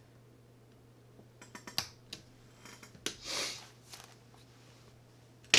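Small clicks and ticks of metal reel parts and tools being handled while an E-clip is fitted onto a baitcasting reel's palm plate, with a short rustle partway through and one loud sharp click near the end as the clip snaps on.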